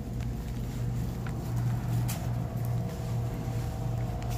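A steady low hum of background machinery, with a few faint clicks.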